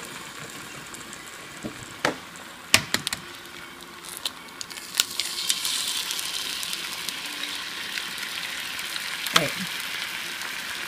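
Eggs sizzling in hot bacon fat in a cast iron frying pan, a steady hiss that grows louder about halfway through as a second egg goes into the pan. A few sharp clicks cut through the sizzle.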